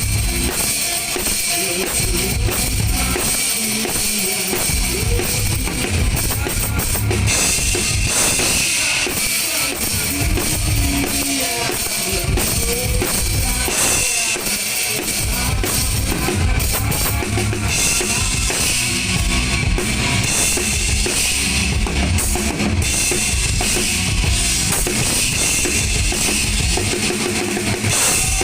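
Rock drum kit played over a PA during a band sound check: kick drum, snare and cymbals, steady and loud throughout.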